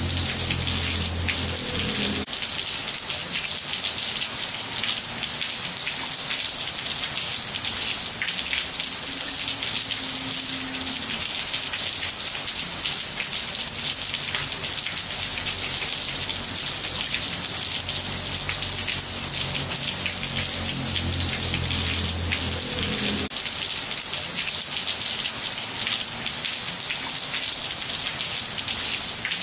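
Steady rain falling on a wet ceramic-tiled patio floor: a dense, even hiss of many small drop impacts on the tiles. A faint low hum comes in under it during the first two seconds and again for a few seconds near the end.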